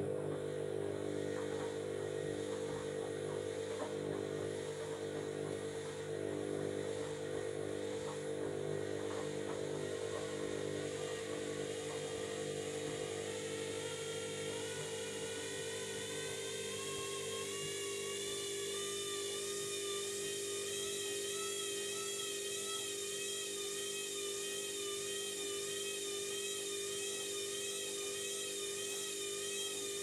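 Candy front-loading washing machine spinning its drum: a steady motor whine over a low hum. A wavering higher tone comes in about halfway through.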